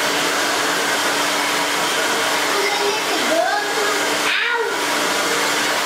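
Handheld hair dryer blowing hair steadily, a continuous rush of air over a low motor hum, with the noise dipping briefly about four and a half seconds in.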